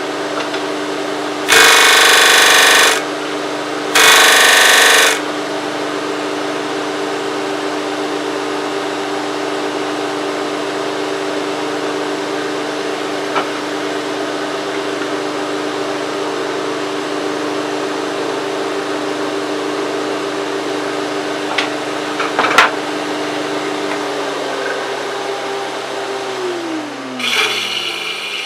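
Record Power DS300 disc sander running with a steady motor hum. Twice early on, wood is pressed against the spinning abrasive disc, giving two loud bursts of sanding, about a second and a half and a second long. Near the end the motor is switched off and its hum falls in pitch as the disc runs down, with a rasping rub over the last moments.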